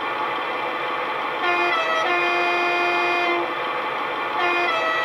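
Model Class 41 Warship locomotive's ESU LokSound V5 sound decoder playing an alternative two-tone horn over the diesel engine idling. The horn sounds twice, each blast a short higher note dropping to a longer, lower one.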